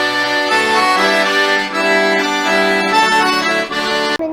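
Intro music of held, reedy chords and melody notes, which cuts off suddenly near the end.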